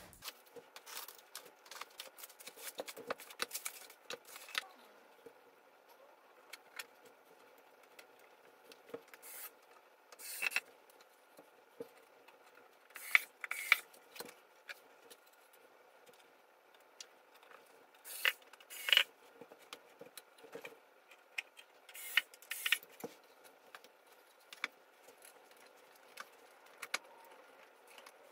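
Scattered clicks, clinks and scrapes of flat-pack bookcase assembly: particleboard panels being handled and set against each other, and small metal screws and fittings jangling, with quiet stretches between.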